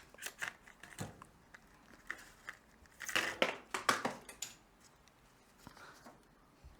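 Plastic crinkling and clicking in the hands as the new LED reverse-light bulbs are handled: short rustles near the start, a busier cluster about three to four seconds in, and a few light ticks near the end.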